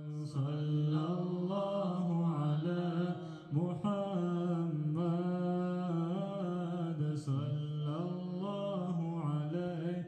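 A man's voice chanting in long, drawn-out melodic phrases, each note held and bent slowly in pitch, with a short break about three and a half seconds in.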